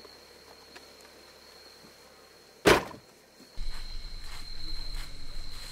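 A car door slams shut once, a little past halfway through, the loudest sound. Around it, insects chirr with one steady high note, louder after the slam, over a low outdoor rumble.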